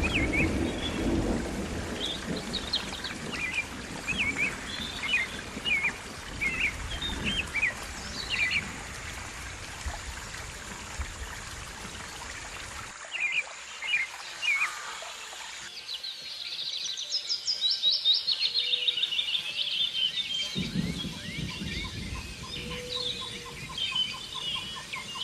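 Small songbirds chirping and singing, many short repeated calls, over a steady rushing background in the first half. After a sudden break about halfway, the calls carry on more clearly, with a faster, denser run of song a little later.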